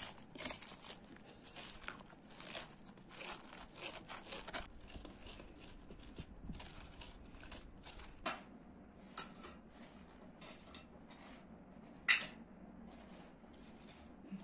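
Metal spoons scraping the seeds and stringy pulp out of halved butternut squash: an irregular run of short rasping strokes, busier in the first few seconds, with one sharper knock about twelve seconds in.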